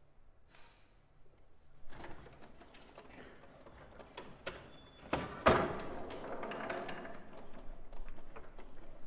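Foosball table played in a performance: sharp knocks and clacks of rods, plastic players and ball against the table, scattered at first, with the loudest bang about five and a half seconds in and busier clattering after it.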